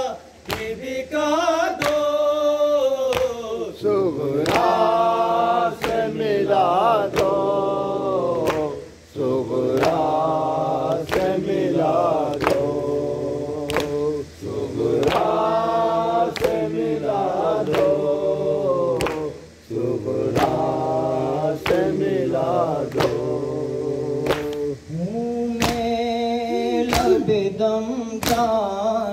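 Men's voices chanting a Muharram noha, a lament sung in phrases with short breaks, over the steady beat of hands slapping chests in matam.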